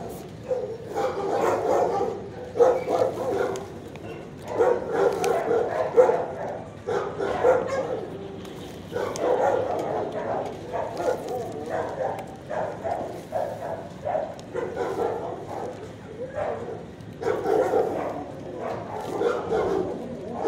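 Shelter dogs barking and yipping in repeated bursts, almost without a break.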